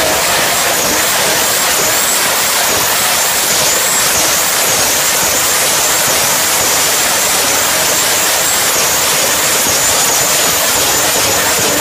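Nissan Skyline R32 GT-R's twin-turbo straight-six held at high revs with its tyres spinning in a burnout: a loud, unbroken wall of engine and tyre noise with a high wavering whine on top.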